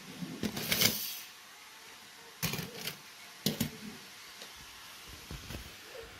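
Die-cast toy cars clicking and clattering against one another in a few short bursts: a cluster in the first second, then more at about two and a half and three and a half seconds, with faint ticks after.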